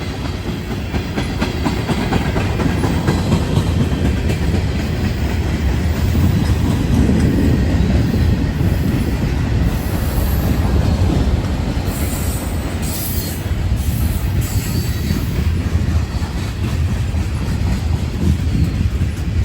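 Norfolk Southern freight train passing close by: a steady rumble of cars rolling over the rails, growing louder over the first few seconds. Brief high wheel squeals come in about two-thirds of the way through.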